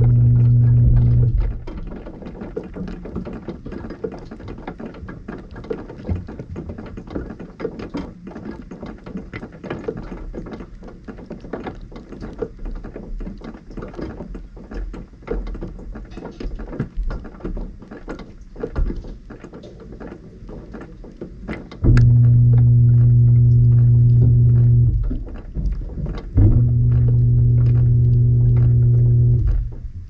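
Heard from inside a dishwasher tub: the pump motor hums loudly for the first second or so, then water drips and ticks against the tub and racks, and near the end the hum returns in two bursts of about three seconds with a short break between.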